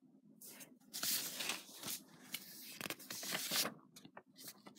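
Pages of a folder of drawings being handled and turned: a rustling that comes and goes for about three seconds, then a few light taps near the end.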